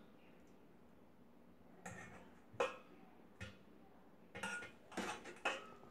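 Metal spoon knocking and scraping against a steel pot and a glass bowl while tamarind pulp is spooned across, a string of short clinks starting about two seconds in.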